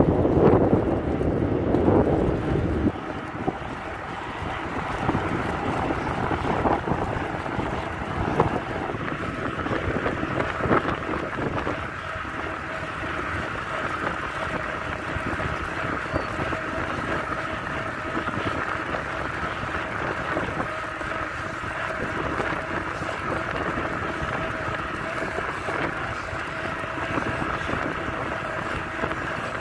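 Wind rushing over the microphone of a camera riding on a moving bicycle, together with steady rolling road noise. The buffeting is heaviest for the first three seconds, then settles into an even rush.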